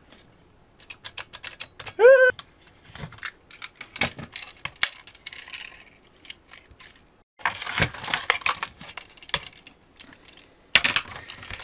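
Plastic case of a Dyson V8 battery pack being pried open by hand and with a screwdriver: irregular clicks and snaps of the clips giving way, a stretch of crackling and scraping plastic about halfway through, and a brief rising squeak about two seconds in.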